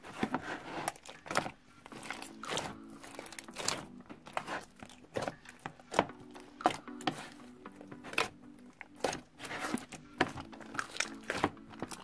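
Hands kneading and squeezing a mass of slime studded with foam beads, making a dense run of irregular sticky crackles, clicks and pops as air pockets burst. Soft background music plays underneath.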